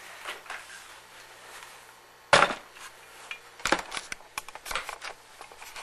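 A sharp knock about two seconds in, the loudest sound, followed by a scatter of lighter clicks and knocks: hands handling things on a wooden tabletop.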